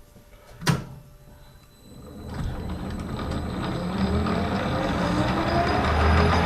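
A single sharp clunk, then a metal lathe starts up about two seconds in and runs with a low hum and mechanical noise that grows steadily louder.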